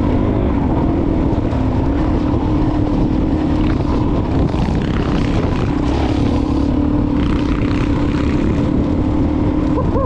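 Off-road motorcycle engine running at a steady cruising pitch while being ridden along a dirt track, heard from on the bike itself.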